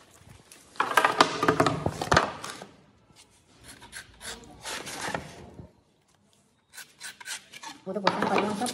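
A pencil riding against a wooden guide block scraping along a plywood sheet to mark a line, in several rubbing strokes, the first the loudest.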